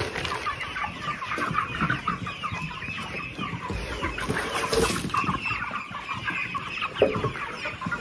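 A flock of young white meat chickens peeping and clucking, many short high calls overlapping continuously.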